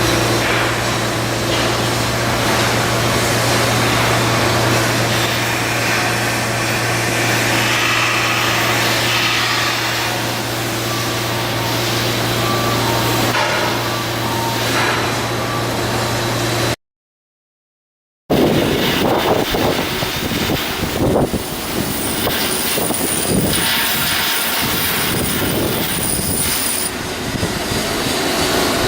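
Shipyard work noise: a steady machine hum for the first half, then after a cut, irregular clanking and mechanical noise with a thin high whine.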